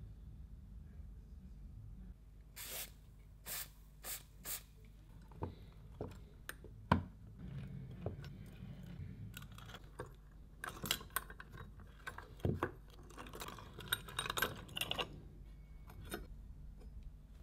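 Small metal parts of an antique brass oil lamp being handled on a workbench: a series of sharp clicks and knocks, one louder knock about a third of the way in, then a stretch of metallic rattling and scraping.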